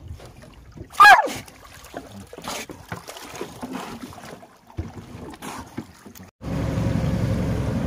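Water splashing around a roped sambar deer swimming beside a boat, with one short, loud cry falling in pitch about a second in. At about six seconds the sound changes abruptly to the steady low drone of a boat engine.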